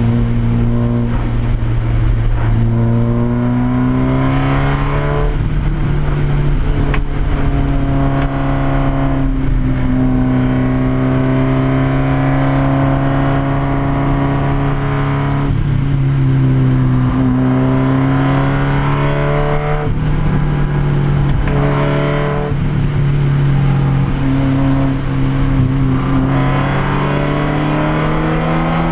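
Race car engine heard from inside the cabin on track at speed. Its pitch climbs under throttle and drops back several times.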